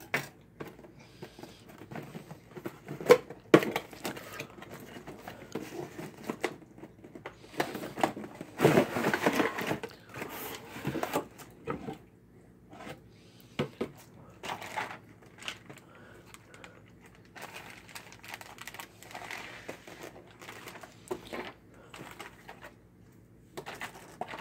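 Cardboard board-game box being opened and unpacked: scattered clicks, taps and scrapes of cardboard and plastic game pieces, with a longer rustling scrape about nine seconds in as the lid comes off the box.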